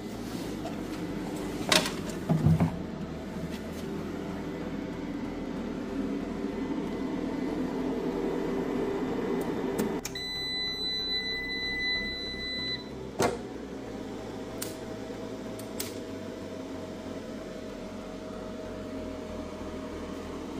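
Daxtromn 10.2 kW inverter's buzzer giving one steady high beep of nearly three seconds as the inverter is switched off, over a steady low hum. There are a few sharp clicks, two near the start and one just after the beep.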